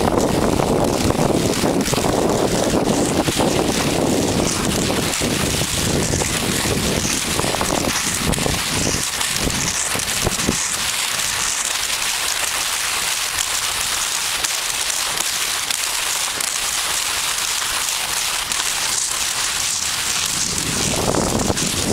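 Skis running fast over crusted spring snow, a steady rain-like hiss, with wind rumbling on the microphone that fades about halfway through and comes back near the end.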